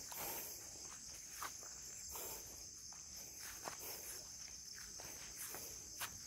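A steady, high-pitched chorus of insects, with a few irregular footsteps on the ground.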